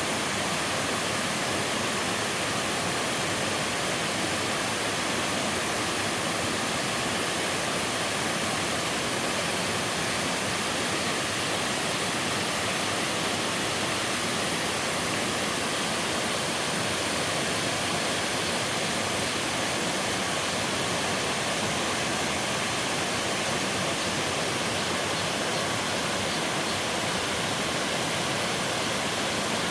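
Waterfall in a mountain valley falling into a pool: a steady, unbroken rush of water.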